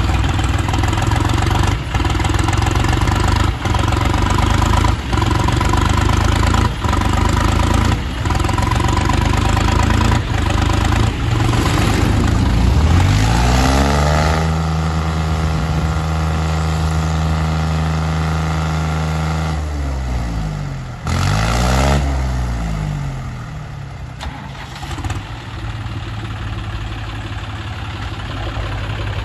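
Farm tractor diesel engines, a John Deere 5050D and a New Holland 3630, running hard under load while chained together in a tractor tug of war. The engine sound pulses with short dips about every second and a half, then revs up to a high steady pitch held for about five seconds and drops back. It gives one short rev up and down, then settles to a lower, steadier run.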